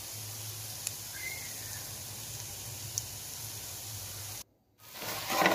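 Oil sizzling gently in an aluminium pot of browned onions over a low flame: a soft, steady crackle. It cuts out briefly near the end and comes back louder.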